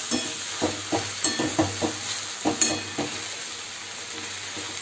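Water spinach and green amaranth frying in mustard oil in a metal karai, sizzling steadily. A slotted metal spatula scrapes and turns the greens in quick strokes for the first three seconds or so, then eases off, leaving mostly the sizzle.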